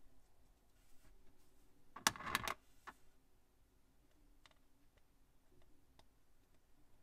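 Small plastic Plus-Plus building pieces clicking as they are handled and pressed together. There is a quick cluster of clicks about two seconds in, then a few light single ticks.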